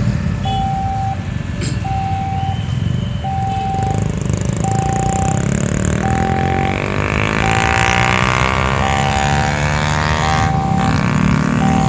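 Railway level-crossing warning alarm beeping in an even on-off rhythm, about one beep every 1.4 seconds, over the low rumble of waiting road traffic. From about halfway, a road vehicle's engine rises in pitch as it approaches and drops sharply as it passes near the end.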